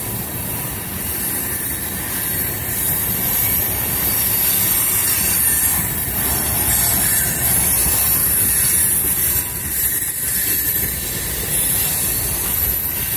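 Freight train cars rolling past at close range: a steady rumble of wheels on rail with a high-pitched wheel hiss and squeal over it.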